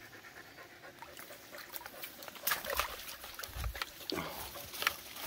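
Footsteps pushing through leafy forest undergrowth: scattered crackles and rustles of leaves and twigs, with a couple of low thumps in the middle.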